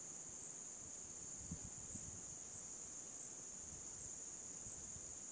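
Steady high-pitched drone of insects, with faint low rumbles underneath.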